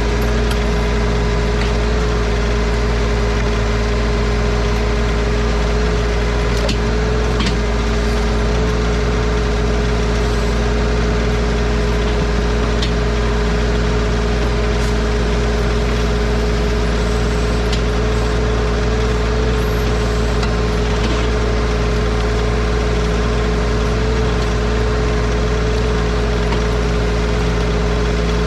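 Bad Boy 4035 tractor's diesel engine running at a steady, unchanging speed while working the backhoe, with a strong constant whine over the engine note. A few faint sharp clicks or cracks come through now and then.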